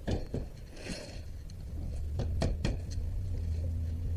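Sharp metal clicks and a short scrape from a screwdriver working a retaining clip into its groove on an ATV's rear axle housing: a few clicks at the start, a scrape about a second in, then three more clicks. A steady low hum runs underneath.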